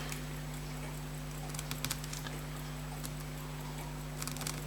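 Small faint clicks and scratches of a hand tool pressing on tight pins in a fusee pocket watch movement: a few about two seconds in and a short cluster near the end, over a steady low electrical hum.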